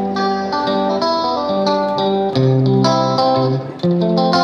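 Background music: a guitar playing a melody over chords, with notes changing every half second or so.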